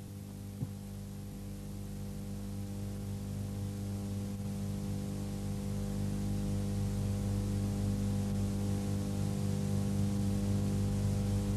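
Steady low electrical hum with a stack of even overtones, slowly growing louder, with one faint click about half a second in.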